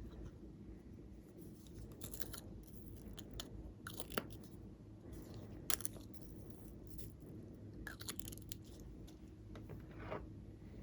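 Slime being kneaded and mixed by hand: faint, irregular sticky crackles and clicks, with two sharper pops about four and six seconds in.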